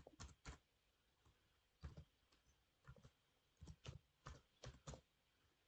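Faint computer keyboard keystrokes: about a dozen irregular taps in short runs, with pauses of about a second between runs.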